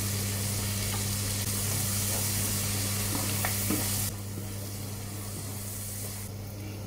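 Garlic and onions sizzling in melted butter in a frying pan while a wooden spatula stirs them, with a few light scrapes and taps. The sizzle drops sharply about four seconds in, over a steady low hum.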